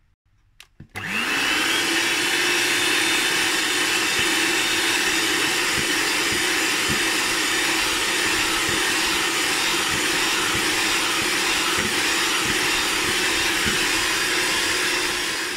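Electric hand mixer switched on about a second in, its motor spinning up with a rising whine and then running steadily. Its wire beaters are whipping creamy beaten eggs and sugar.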